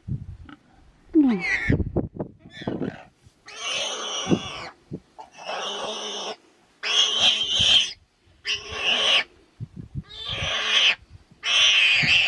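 Warthog squealing in distress while pinned by a lioness's bite, still alive: a few short cries, then about six harsh squeals of roughly a second each in quick succession.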